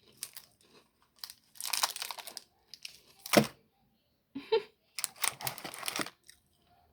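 Plastic snack wrapper being torn open and crinkled in several short noisy bursts, the sharpest about three and a half seconds in.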